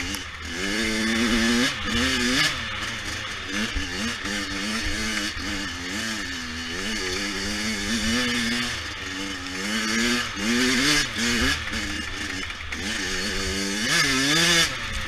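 A 100cc dirt bike engine revving hard, its pitch climbing and dropping roughly once a second as the throttle is worked through the gears, over a steady hiss.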